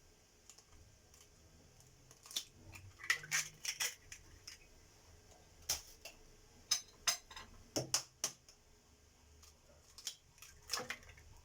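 Scattered light clicks and taps of kitchen utensils and containers, some in quick little clusters, as ingredients such as eggs are added to a blender jug.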